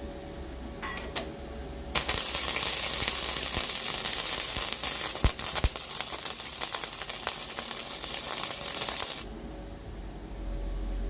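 A TIG welding arc from a welder set in MIG mode, burning for about seven seconds with a dense crackling hiss, then cutting off suddenly. Two short clicks come just before the arc starts, and a steady machine hum runs before and after it.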